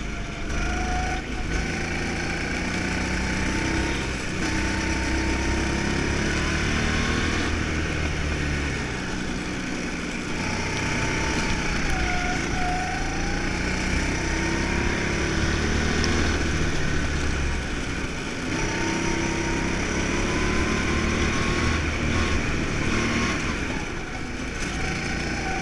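Go-kart engine heard from the driver's seat, running hard through a lap: its pitch climbs along the straights and drops several times as the kart slows for corners.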